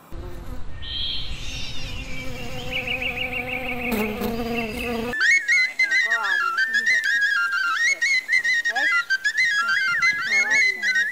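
A small hand-held wind instrument, blown with both hands cupped around it, plays a high piping melody of stepping notes from about five seconds in. Before that there is a low rumbling noise with a held low tone and a high pulsing trill.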